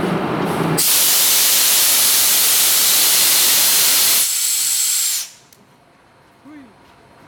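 Compressed air blasting out of a train's air-brake line at the coupling between an NS 1700-class electric locomotive and a passenger coach as the brake hose is worked: a loud hiss begins about a second in, lasts about four seconds and then cuts off.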